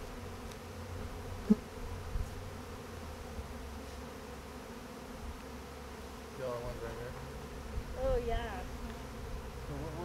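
Many honey bees in flight around a colony during a hive transfer, a steady hum of wings. A sharp click about a second and a half in.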